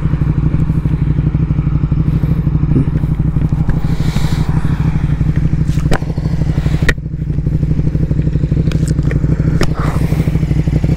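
KTM Duke motorcycle engine idling steadily in neutral, with a few sharp clicks and rustles from a backpack being handled.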